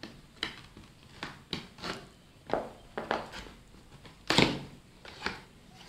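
Cardboard box being opened by hand: a string of short clicks, taps and scrapes of hands on cardboard, with one louder, longer scrape about four and a half seconds in.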